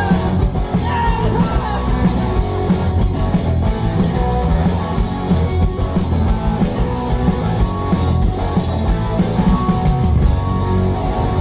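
Rock band playing live at full volume, with guitar over a dense low end and no lead vocal line.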